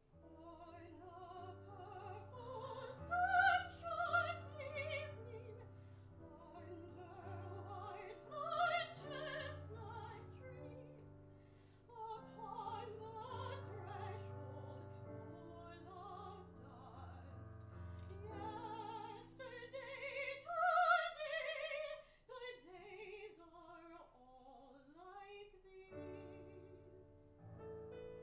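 Soprano singing an art song with wide vibrato, accompanied by piano. About 22 seconds in the piano falls away and the voice sings alone in sliding pitches, before the piano comes back near the end.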